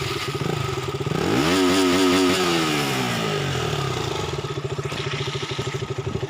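200 cc single-cylinder motorcycle engine idling, then revved once about a second in: the pitch rises, wavers briefly near the top, and falls back to a steady idle by about four seconds.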